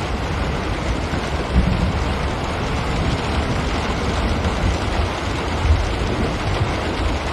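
Steady rain on a window, an even hiss of drops with a low rumble underneath that swells slightly a couple of times.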